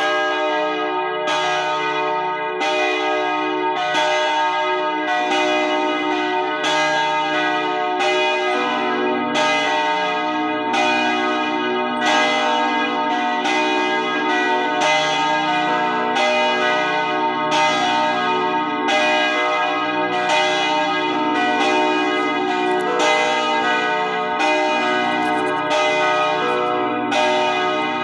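Church bells ringing, struck in a steady, even rhythm of about four strikes every three seconds, their tones overlapping and ringing on between strikes.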